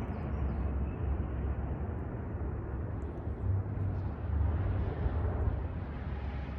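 Airplane making a low, uneven rumble that swells and eases, an unusual noise whose cause is unknown.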